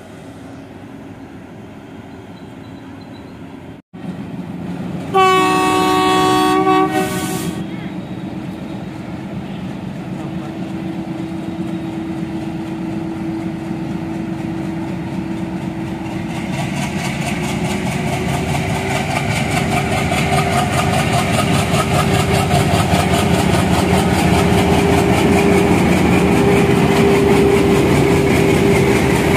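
ALCO diesel locomotive approaching and passing. A loud two-tone horn blast comes about five seconds in and lasts about two seconds. Then the engine drone and a steady whine grow louder as it nears, with wheels clacking over rail joints near the end as it passes close.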